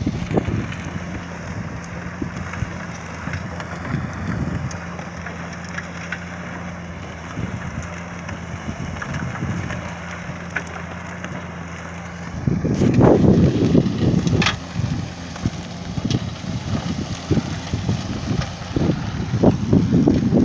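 Truck-mounted solid manure spreader and its truck running with a steady hum, with wind buffeting the microphone. About twelve seconds in, the sound turns louder and rougher.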